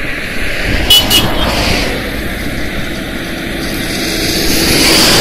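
Steady running noise of a moving vehicle, with a brief high-pitched chirp about a second in.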